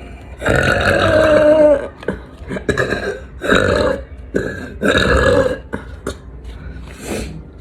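A young woman burping loudly: one long burp lasting about a second and a half, then several shorter burps, the last one fainter.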